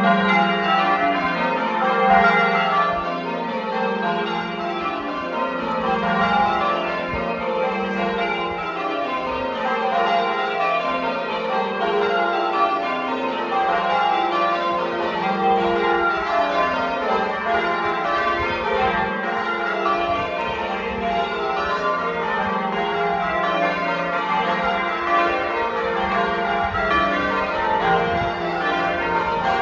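Church bells ringing as a call to church, many bells struck in quick succession so their tones overlap and ring on.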